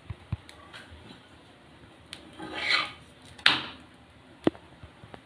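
A cooking utensil scraping and tapping on a tawa while a lachha paratha is moved on it. There are a few sharp clicks, two longer scrapes about halfway through, and a sharp knock near the end.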